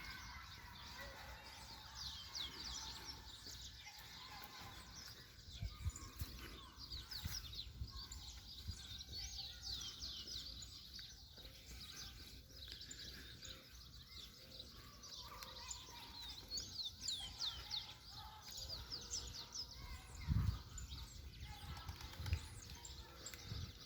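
Birds chirping in a forest: many quick, high, falling chirps repeated over and over, with a few low thumps, the loudest of them about twenty seconds in.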